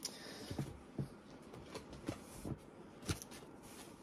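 Paperback books being handled and set down one after another: a handful of soft knocks and thumps with light paper handling in between, the sharpest about three seconds in.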